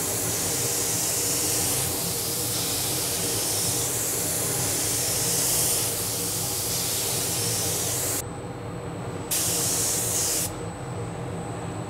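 Gravity-feed spray gun hissing as it sprays Cerakote onto a small engine part. The hiss runs on through a long pass, breaks off about eight seconds in, comes back for a short burst of about a second, then stops. A steady low hum lies underneath throughout.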